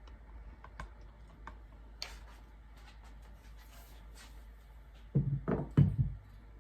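A few faint scattered clicks, then a short cluster of dull, low thumps about five seconds in, like handling knocks.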